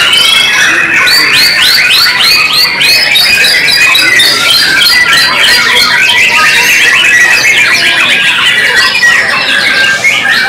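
White-rumped shama singing a loud, fast, continuous song of rapid whistled notes, with a run of quick repeated notes about four a second near the start, overlapping other birds' song.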